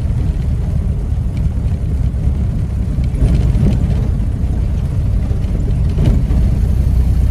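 1930 Ford Model A truck's four-cylinder flathead engine running steadily as the truck cruises along, a low, even rumble heard from inside the cab.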